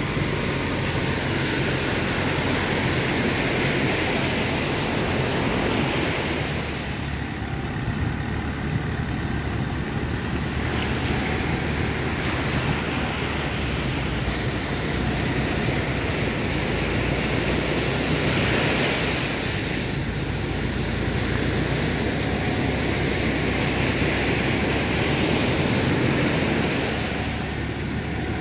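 Surf breaking and wind rushing over the microphone, with a vehicle engine running steadily underneath.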